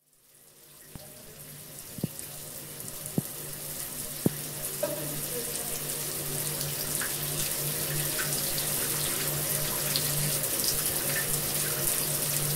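Water running steadily from a tap, a rushing sound that swells up over the first few seconds and then holds, with a low hum beneath it. Three short clicks sound in the first five seconds.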